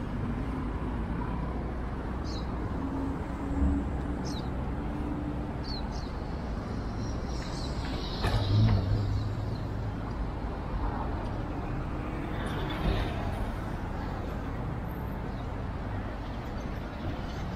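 Downtown street ambience: a steady rumble of road traffic, with a few brief high chirps early on and a vehicle passing louder about eight seconds in.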